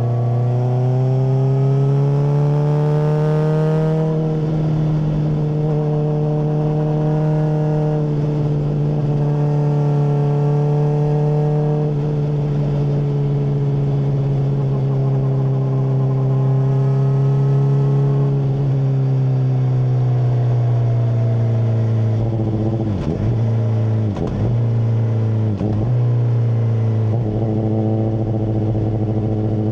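Honda CBR600RR inline-four through a MIVV full exhaust, under way: the engine note climbs through the gears with a short drop at each upshift during the first dozen seconds, holds, then falls away a little past halfway as the throttle is closed, with a few brief breaks in the note before it settles into a steady cruise.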